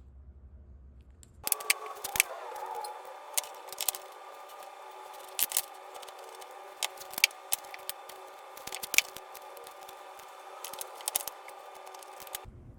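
A small power tool's motor starts about a second and a half in and runs steadily, with irregular sharp clicks and ticks over it. It cuts off shortly before the end.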